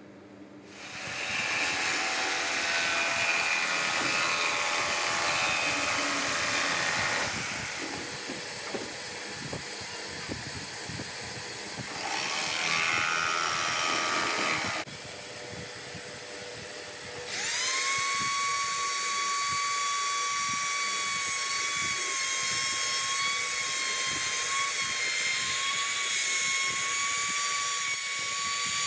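Shop power tools one after another: a jigsaw cutting plywood, then a Ronix trim router whining up to speed and running at a steady high pitch.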